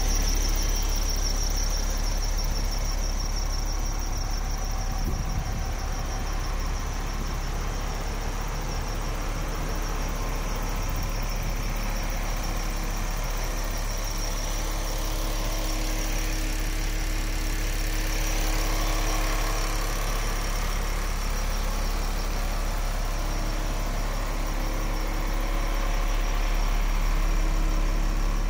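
MAN TGX 26.400 truck's straight-six diesel engine idling steadily.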